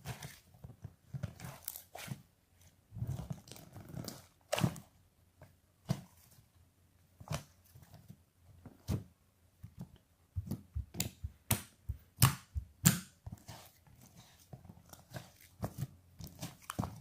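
Irregular crunches and clicks of something being chewed, uneven single bites with gaps between them.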